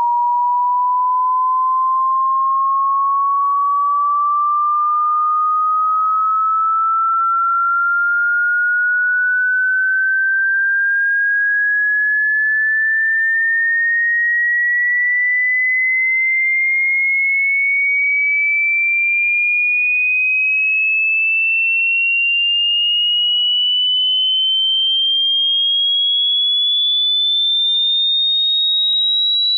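A single loud, pure electronic tone with no overtones, gliding slowly and evenly upward in pitch from a high beep to a shrill whistle.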